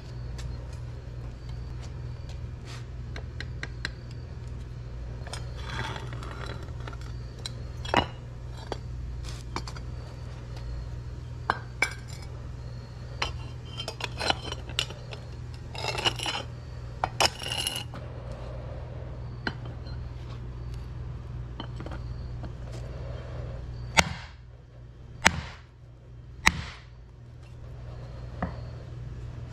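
Metal clinks and scrapes of a hot copper ingot and its mold being handled with tongs, over a steady low hum. Near the end come three sharp hammer blows, about a second apart, on a stamp struck into the hot copper bar, hard enough to crack the stone block beneath it.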